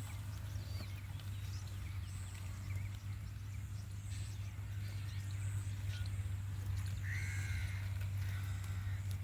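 Steady low hum with faint, scattered bird calls over it, one a little louder about seven seconds in.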